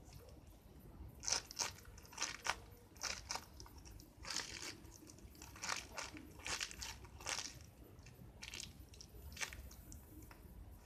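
Short, crinkly rustles about once a second from a small squishy toy being handled and squeezed in the hand.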